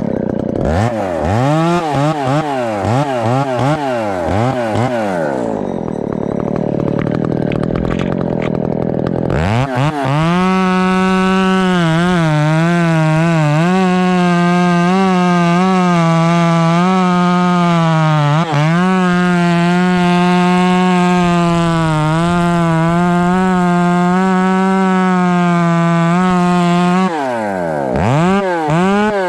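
Ported two-stroke chainsaw blipped on the throttle, then held at full throttle in a long, steady cut through a felled grand fir to take the butt off the log, dipping briefly midway, before the throttle is let off and blipped again near the end.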